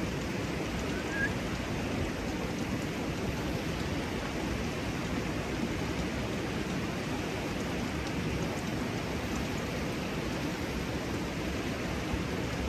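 Steady rush of running hot-spring water spilling over a small cascade.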